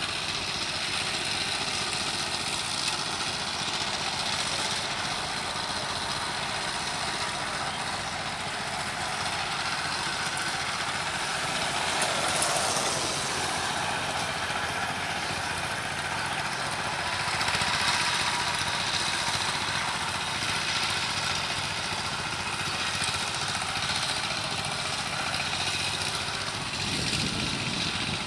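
Single-cylinder diesel engine of a two-wheel power tiller running steadily under load as the tiller works through deep paddy mud, swelling louder twice partway through.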